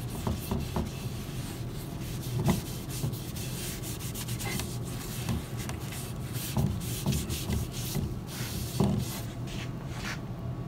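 A damp cloth rubbed in irregular strokes over a bare, sanded wooden TV base, wetting the wood to preview its finish, with a few light knocks as the base is handled.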